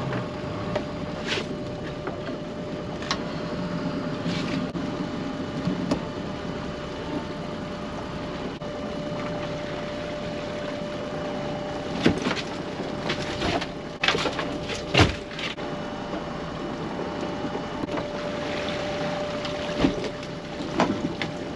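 Electric pot hauler on a small boat winding in a crab pot's rope, with a steady motor whine over a low rumble. A run of sharp knocks and clatters about two-thirds of the way through, and another knock near the end, as the pot comes over the side onto the deck.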